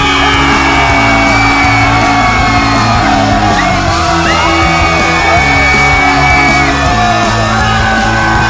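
Loud rock music, with a lead line sliding up and down in pitch over held bass notes.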